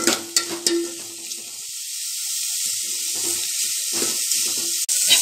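Sliced onions and curry leaves sizzling in hot oil in a metal pot, sautéing toward the translucent stage. A steel spoon stirs them, clinking sharply against the pot three times in the first second and scraping later on.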